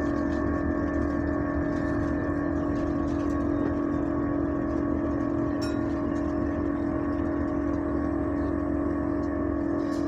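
Loud, steady droning tone inside a bus's passenger saloon, holding one pitch with fainter overtones above it, over the low rumble of the bus.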